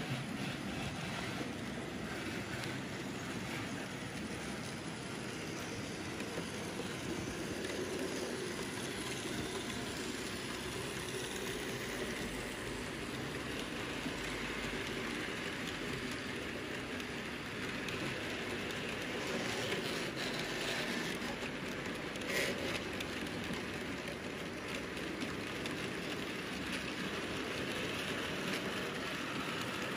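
Model freight train of high-sided open wagons rolling along the track: a steady, fine rattling clatter of small wheels on the rails, with one sharper click about two-thirds of the way through.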